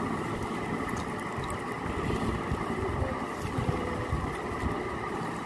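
A hand mashing and mixing chopped raw papaya and guava with mustard oil and chili in a plate: soft, irregular squishing, with a few faint clicks, over a steady low background rumble.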